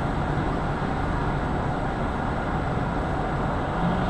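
Steady road and engine noise of a moving vehicle heard from inside its cabin, with a steady low hum joining near the end.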